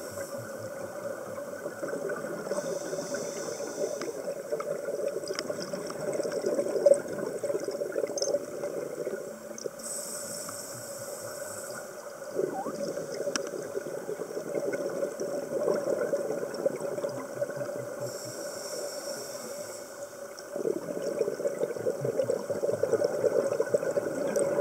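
Scuba diver breathing through a regulator underwater: steady bubbling, with a hissing breath about every eight seconds. It grows louder over the last few seconds.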